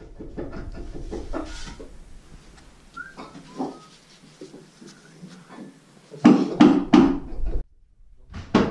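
Blows struck on the wooden deck planking: a quick group of four loud knocks about six seconds in and two more near the end. Before them come small taps and scrapes and a couple of short squeaks.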